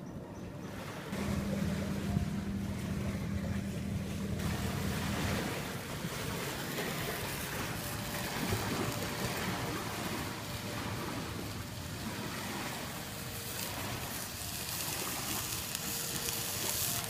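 Wind buffeting the microphone for the first few seconds, then a steady rushing hiss of wind.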